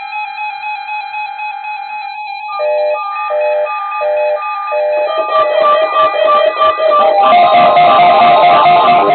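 Intro music: a steady synthesized tone line, then a repeating riff swapping a high note and a lower chord about four times, and from about halfway a fuller guitar-led track building up.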